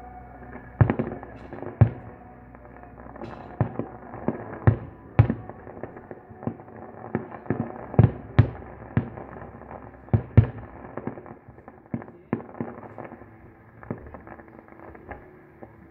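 Fireworks display: aerial shells bursting in an irregular series of sharp bangs, about a dozen, the loudest around one, two, eight and ten seconds in, with a rumbling haze between them that thins out near the end.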